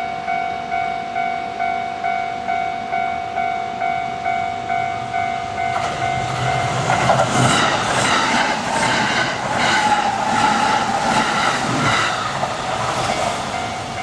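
Japanese level-crossing warning bell dinging about twice a second. From about six seconds in, a Kintetsu limited express train passes over the crossing, its wheels clacking rhythmically over the rail joints and drowning out the bell, which comes back faintly near the end.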